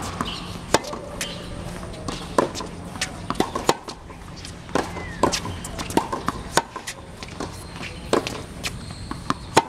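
Tennis balls struck by rackets and bouncing on a hard court during a rally: about a dozen sharp impacts at irregular intervals.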